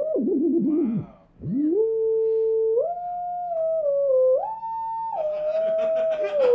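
Web Audio sine-wave oscillator in Chrome, its pitch set by the mouse's position across the screen: a single electronic tone that swoops and steps up and down, dipping almost to nothing about a second in before sliding back up and jumping between held notes.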